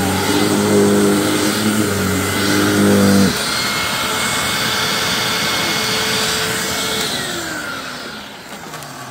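Hoover WindTunnel self-propelled upright vacuum cleaner running loudly. A deeper hum drops out about three seconds in, leaving the motor's steady whine. About seven seconds in the vacuum is switched off, and the whine falls in pitch and fades as the motor spins down.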